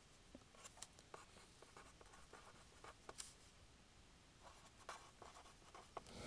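Marker pen writing on paper: faint, short scratchy strokes and ticks as the words are written.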